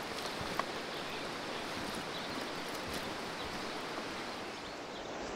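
Small stream running high after heavy rain, a steady rush of flowing water, with a few faint footsteps on the leafy bank.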